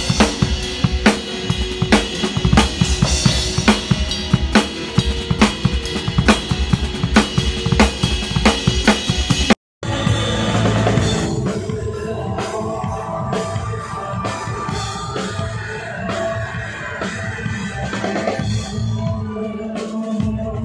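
Acoustic drum kit played up close: a fast, dense run of kick, snare and cymbal strokes. About ten seconds in it cuts off suddenly, and full live band music with drums follows.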